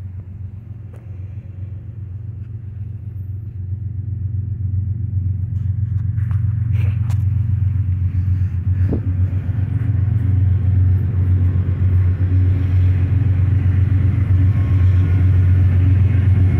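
Approaching BNSF freight train's diesel locomotives: a low rumble that grows steadily louder.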